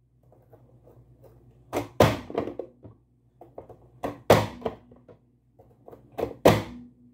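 Hand-press vegetable chopper slammed shut three times, about two seconds apart, dicing sweet pepper: each stroke a sharp clack of the plastic lid forcing the pieces through the blade grid. Lighter clicks and rattles come between strokes as the lid is lifted.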